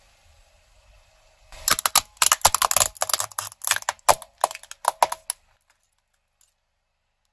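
Plastic toy squeaky hammer cracking and snapping under a car tyre: a rapid run of sharp cracks starting about a second and a half in and stopping a couple of seconds before the end.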